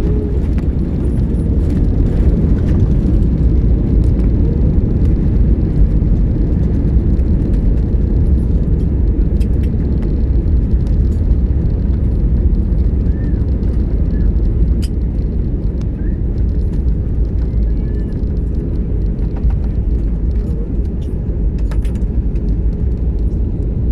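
Airliner landing: a steady low rumble of engines, airflow and runway roll that dips slightly past the middle, with faint scattered clicks.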